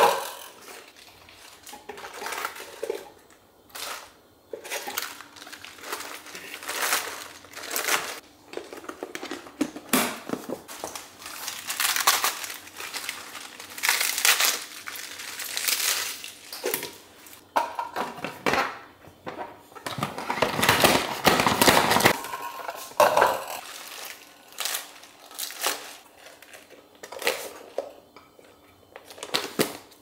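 Crisp lettuce leaves being torn and crumpled by hand over a plastic salad spinner, an irregular run of crunching, crinkling rips. A sharp plastic clack sounds right at the start as the spinner lid is handled.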